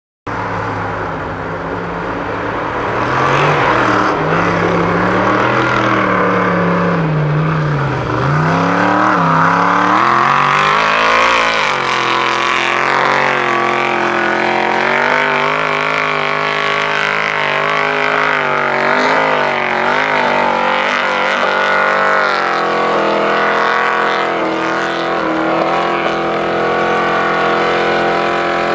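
Off-road vehicle's engine revving hard under heavy load while climbing a snowy hill, its pitch swinging up and down again and again as the wheels spin and grip, then holding higher and steadier in the second half.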